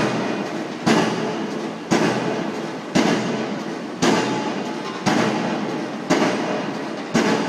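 Pile driver's hammer striking a pile, about one blow a second. Each blow is a sharp bang followed by a ringing tail that fades until the next blow.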